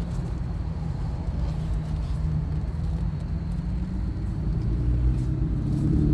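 Aston Martin DB9's V12 engine running in drive over a low rumble, its note rising gently from about four seconds in.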